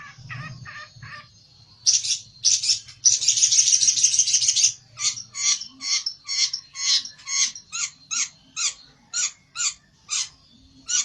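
Long-tailed shrike (pelentet) giving harsh, grating calls: a few quick notes, a dense rattling burst about three seconds in, then an even series of about two to three harsh notes a second. The calls are the agitated, aggressive calling of a shrike challenging a rival.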